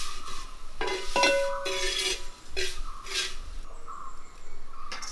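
Metal cooking utensils clinking and scraping: one ringing clink about a second in, among several short scraping strokes.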